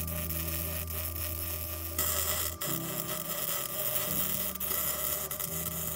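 Arc welding on steel tubing: the welding arc's steady hiss and crackle, which gets louder about two seconds in, over a low hum.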